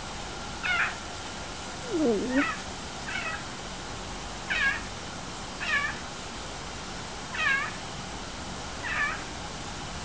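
Clouded leopard meowing: a string of about seven short, high mews, each falling in pitch, spaced a second or so apart, with one lower falling call about two seconds in.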